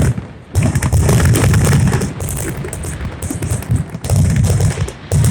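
Aerial fireworks going off in rapid succession, a dense run of booms and crackles. It starts after a brief lull and swells again near the end.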